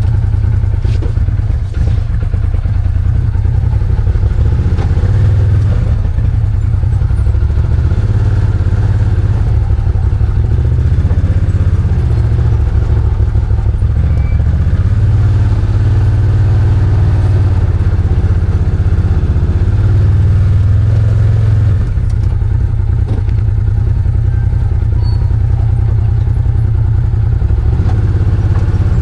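Arctic Cat Wildcat 1000 side-by-side's V-twin engine running steadily, a deep, even drone with some clatter.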